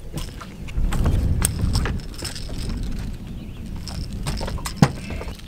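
Knocks and clatter on a bass boat as a hooked bass is landed, with a low rumble about a second in and one sharp knock near the end.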